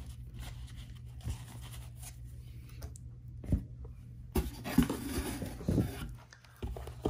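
Trading cards and packaging being handled on a desk: faint rustling and a few soft knocks, the clearest about three and a half seconds in and several more in the second half, over a low steady hum.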